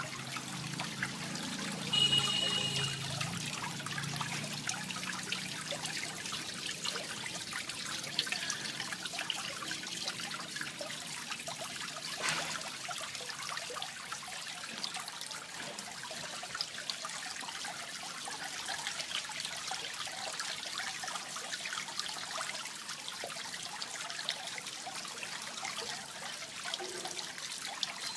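Water trickling and splashing steadily into a fish pond, with many small drips. A brief high-pitched tone comes in about two seconds in.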